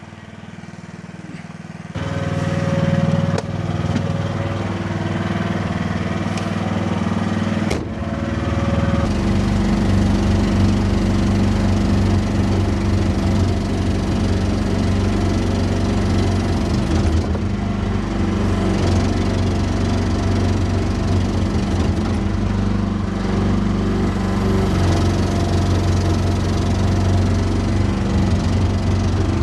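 Small excavator's diesel engine running steadily. It comes in abruptly about two seconds in and gets louder and fuller from about nine seconds on.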